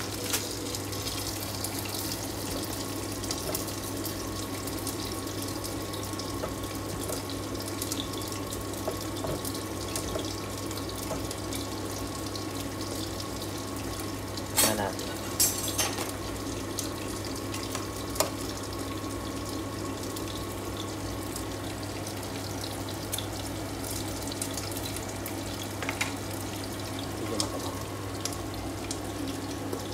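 Pork binagoongan simmering in a frying pan on a gas stove, a steady hiss, with a few clicks of a wooden spatula against the pan about halfway through.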